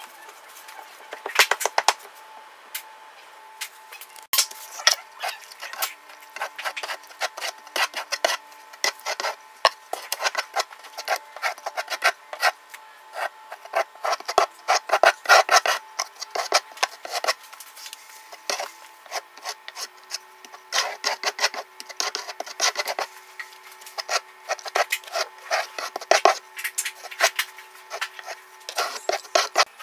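Notched trowel scraping and combing thinset mortar across a wall, in many quick, irregular strokes.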